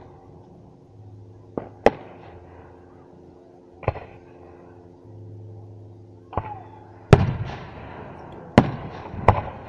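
Aerial firework shells bursting in the sky: about seven sharp bangs at uneven intervals, the two loudest coming late, the bigger ones trailing off in an echo.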